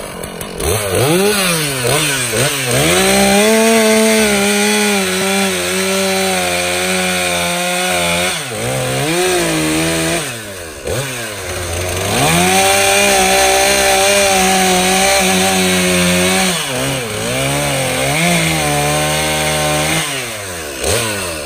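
Stihl MS 461 two-stroke chainsaw cutting through logs for firewood. It revs up and down between cuts and holds a steady full-throttle pitch under load through two long cuts, with shorter cuts near the end.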